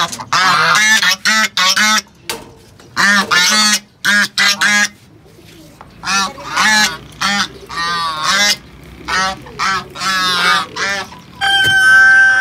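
Domestic geese honking in a rapid series of short calls. Near the end a single steady, held bird call with clear overtones sets in and drops off as it ends.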